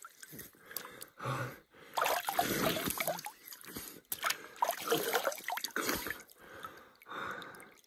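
Water scooped by hand from a shallow creek and drunk from the cupped palm, splashing and dripping back into the stream, with gasping breaths between handfuls. The sounds come in several separate bursts.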